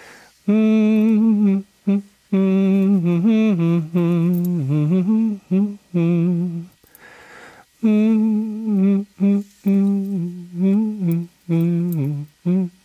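A voice humming a slow melody in short phrases, the pitch wavering, with a pause of about a second past the middle.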